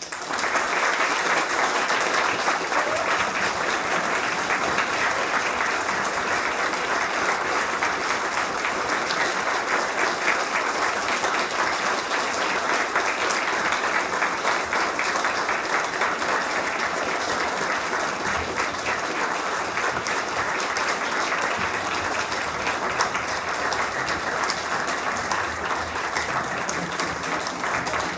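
Audience applauding: the clapping breaks out suddenly and then holds steady and dense.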